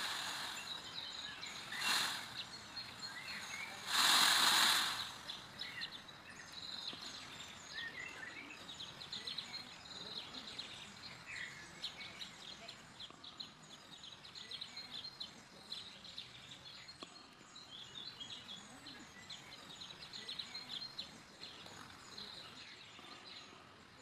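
Birds chirping in the background, many small faint chirps. Three short bursts of rustling noise come in the first five seconds; the loudest and longest is about four seconds in.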